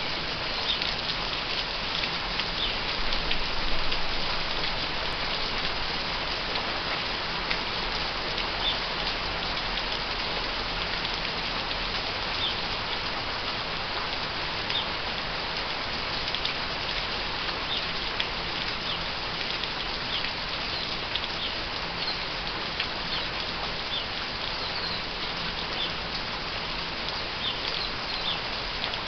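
Steady rain falling, with house sparrows chirping now and then.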